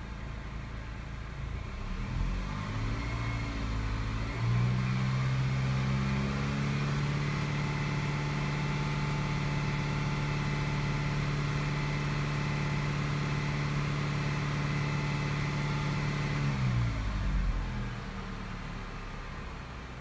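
2015 Chevy Malibu engine revved up from idle about two seconds in and held steady at a raised speed, about 2200 RPM, for roughly twelve seconds, then let fall back to idle near the end.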